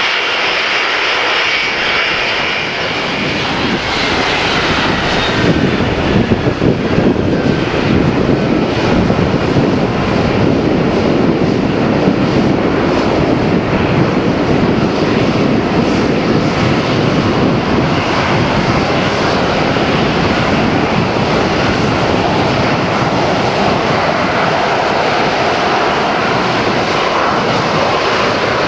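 Lockheed TriStar's three Rolls-Royce RB211 turbofans running on the ground, a loud, steady jet rush as the airliner moves along the runway. A thin high engine whine falls in pitch over the first few seconds.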